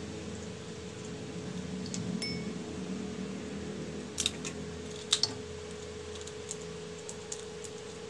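Steady background hum with a few sharp clicks and taps about four and five seconds in, then lighter ticks, from handling mud crab shells, kitchen scissors and a small ceramic bowl while cleaning the crabs.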